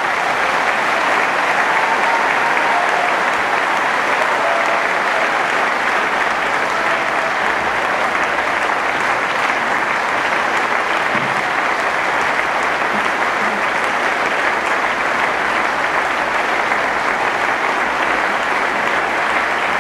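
Large audience applauding steadily, a long unbroken ovation at the close of a speech.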